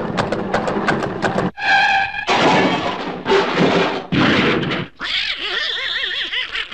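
Donald Duck's raspy cartoon duck voice squawking in short outbursts, with a wavering, warbling sound starting about five seconds in.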